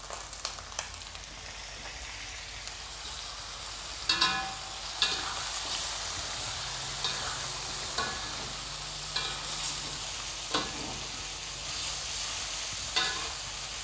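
Chicken being sautéed in hot oil in a pan: a steady sizzle, with a spatula stirring and knocking against the pan every second or two, loudest about four seconds in.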